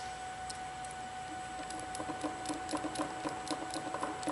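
Small screw being turned into the tool head's metal plate with a hex driver: a quiet run of light clicks, about three to four a second, starting a second or so in.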